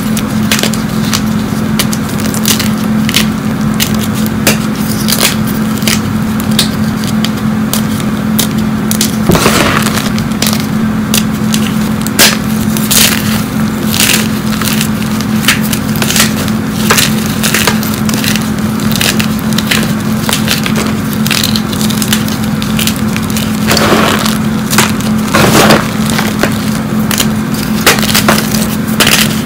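Hands crushing and crumbling hard blocks of fresh gym chalk, with dense crackling and snapping as the pieces break and grind against each other. Longer crunches come about nine seconds in and again near the end.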